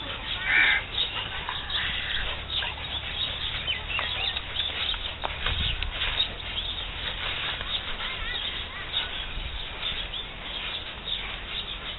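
A group of people doing kapalbhati breathing: many short, forceful puffs of air out through the nose, overlapping and out of step with one another.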